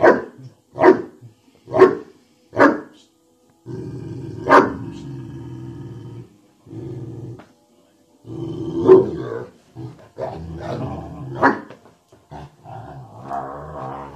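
Dogue de Bordeaux play-barking and growling: four deep barks about a second apart, then long, low, bear-like growls broken by a few more barks.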